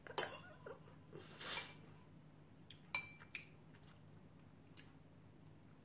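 Quiet eating sounds at a bowl of ramen: a metal spoon clinks sharply against the bowl once, about three seconds in, with a brief ring. Around it are a few softer clicks and mouth sounds.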